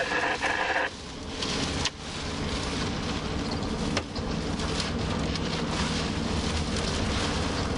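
Steady road and engine noise of a car driving through heavy rain, heard from inside the cabin, with a low rumble under a dense rain-and-tyre hiss. Two sharp knocks stand out, about two and four seconds in.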